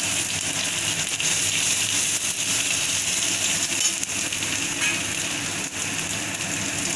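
Onion-tomato spice masala sizzling steadily in hot oil in a kadai, with small scrapes and taps of a metal spatula as it is stirred.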